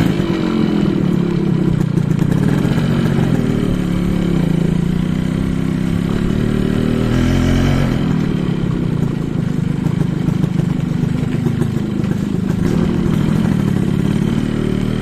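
Suzuki X4 motorcycle's two-stroke single-cylinder engine running while being ridden, its pitch rising and falling with the throttle.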